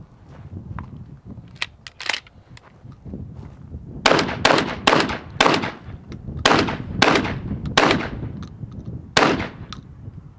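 Shotgun fired in a quick string, about nine shots over some five seconds, starting about four seconds in, each shot trailing off in a short echo. A few faint knocks come before the shooting starts.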